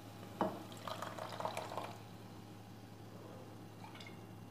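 Coconut milk poured from a bowl into a pot of cooked greens: a light knock about half a second in, then about a second of soft, irregular liquid splashing.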